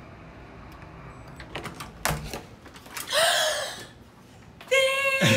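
A few sharp clicks of a hotel room door's latch and handle as it is opened, then a woman's excited scream of greeting, one long held cry near the end.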